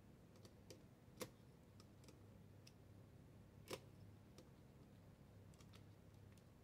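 Faint clicks and taps of clip leads being handled and moved to the amplifier's other speaker terminals, with two sharper clicks about a second in and just before the four-second mark, over a low steady hum.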